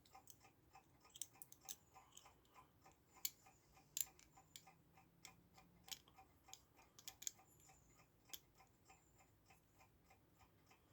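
Faint, steady ticking of a clock, about four ticks a second, with irregular light clicks as a plate and small parts of a clock movement are fitted by hand.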